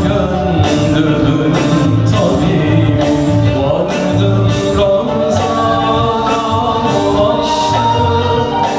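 A man singing a Turkish song live into a microphone, backed by a small band with keyboards over a steady beat.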